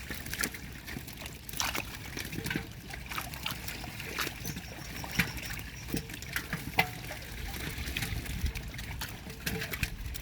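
Pond water trickling and splashing in many small, irregular splashes and drips.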